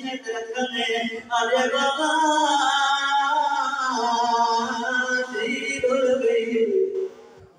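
A man's voice chanting a melodic majlis recitation, unaccompanied, through a microphone, drawing out long wavering notes; it breaks off briefly near the end.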